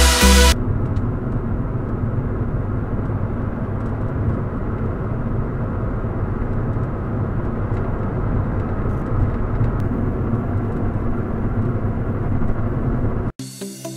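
A car driving at steady road speed, heard from inside: an even, low rumble of tyre, road and wind noise with the engine under it.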